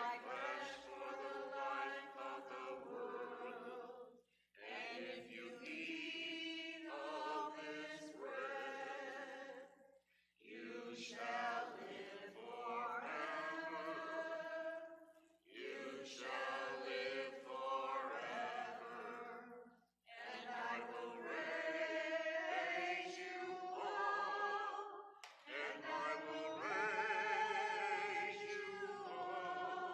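An unaccompanied hymn sung in long, sustained phrases with vibrato, with a short pause for breath every few seconds.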